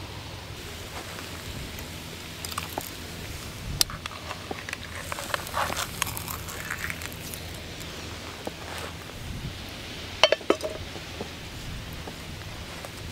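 Small camping frying pan and utensil clinking and scraping as a fried egg is slid out of the pan onto a slice of bread, with a few sharp clinks of metal about ten seconds in.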